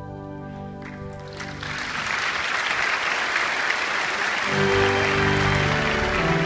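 The accompaniment's last chord rings out, then the congregation applauds with steady clapping. About four and a half seconds in, instrumental music starts again under the applause.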